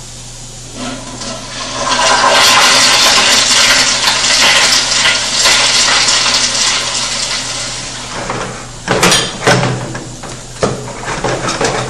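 A toilet flushing: a rush of water starts about a second in, runs loud for several seconds, then tapers off, with a few sharp knocks near the end.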